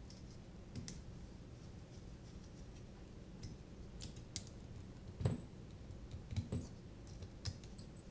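Scattered small clicks and taps of a screwdriver and small parts being handled on a quadcopter frame over a silicone work mat, with a louder knock about five seconds in and a few more knocks a second later.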